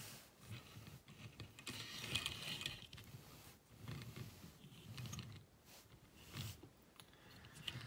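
Die-cast 1/64-scale Dodge Ram 3500 dually toy truck's small wheels rolling on a road mat as it is pushed back and forth by hand. The sound is a faint, uneven rumble and rustle in short bursts about once a second.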